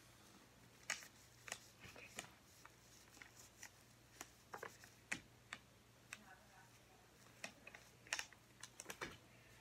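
Quiet, scattered small clicks and taps from a plastic Baby Alive doll being handled and rubbed with a washcloth, with near silence between them.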